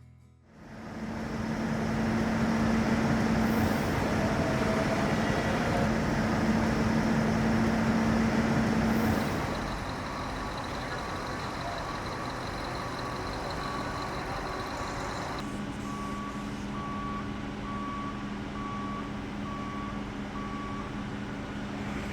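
Heavy diesel machinery running steadily, louder for the first half and then quieter. In the second half a backup alarm beeps evenly, a little over once a second.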